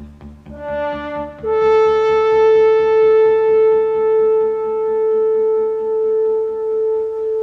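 Background music: a quick pulsing beat at first, then a horn-like held note that steps down in pitch about a second and a half in and sustains for several seconds.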